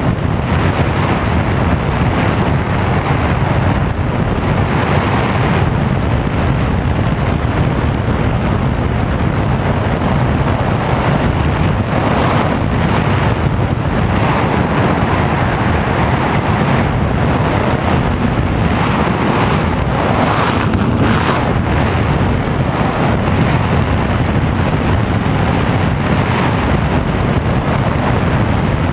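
Wind noise on the onboard camera microphone of a Sky Surfer RC glider in a gliding descent: a loud, even, rumbling rush of airflow that swells a little now and then, with no steady motor tone.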